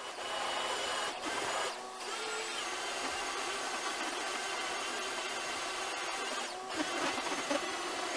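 Electric belt sander running steadily as it rough-sands a glued-up mahogany and basswood tabletop flat, evening out the ridges left from the glue-up. The sound dips briefly about one and two seconds in.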